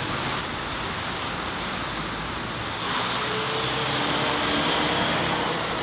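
Steady street traffic noise, the rush of passing vehicles, growing a little louder about three seconds in, with a faint high whine in its later part.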